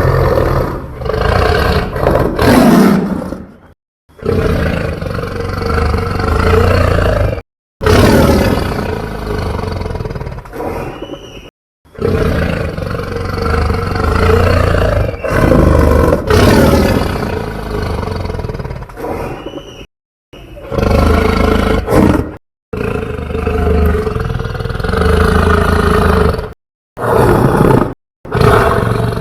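Homemade dinosaur roar sound effects: a string of long, loud roars with a deep rumble underneath, each one or two to several seconds long and cut off abruptly by a brief silence before the next.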